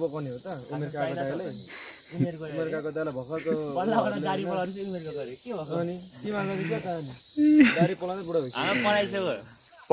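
Steady, high-pitched drone of an insect chorus, with people talking over it.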